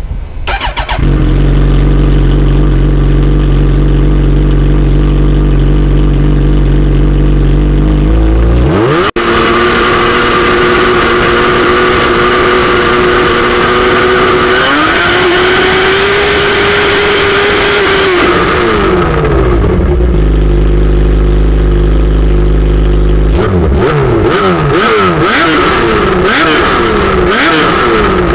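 Suzuki GSX-R750 inline-four running through an Akrapovic megaphone exhaust while standing still. It idles steadily, is revved up about eight seconds in and held at raised revs, climbs higher around halfway, then drops back to idle. Near the end it takes a run of quick throttle blips.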